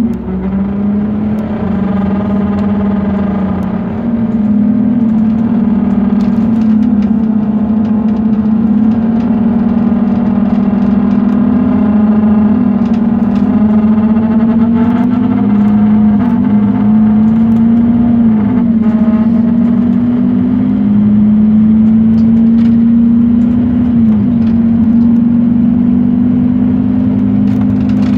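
Scania K230UB city bus heard from inside the cabin, running with a loud, steady droning hum whose pitch slowly creeps up and dips back a few times, with faint rattles from the interior trim. It is the unexplained noise of a bus the uploader calls broken, without knowing what is wrong with it.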